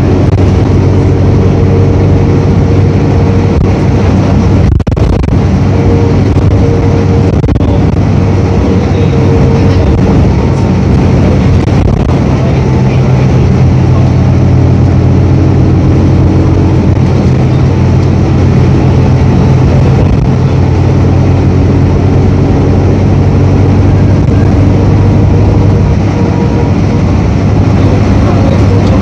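Diesel engine of a 1999 New Flyer D40LF city bus idling steadily.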